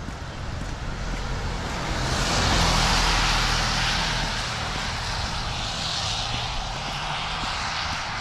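A vehicle passing on a rain-wet road, its tyre hiss and engine rumble swelling to a peak about three seconds in, then easing off.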